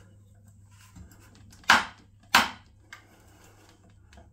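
Two sharp metal knocks about two-thirds of a second apart, then a lighter click: a chrome shower riser bar knocking against the bar mixer valve as it is seated.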